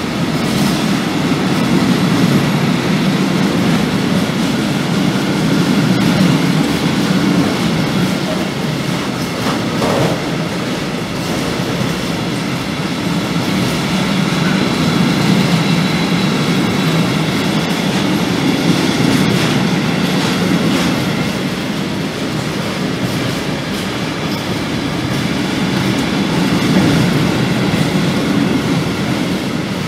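Freight train of tank wagons rolling past at close range: a steady rumble of wheels on the rails that swells and eases, with occasional clicks and faint high-pitched ringing tones.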